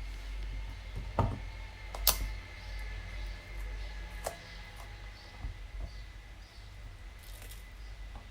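Kitchen knife and utensils on a cutting board as bell peppers are cut into large pieces: a few sharp clicks and taps, the loudest about one and two seconds in, over a low steady hum.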